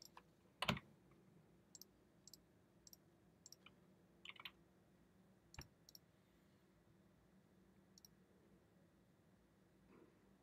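Faint computer keystrokes and mouse clicks: about eight sharp, separate clicks spread unevenly over near silence, the loudest one under a second in.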